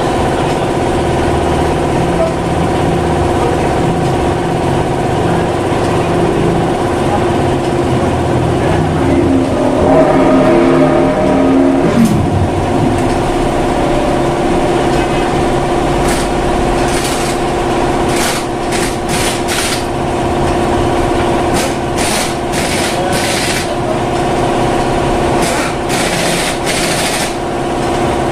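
Air hose at a car wheel releasing short hissing bursts of compressed air, in clusters in the second half, over a steady machine hum.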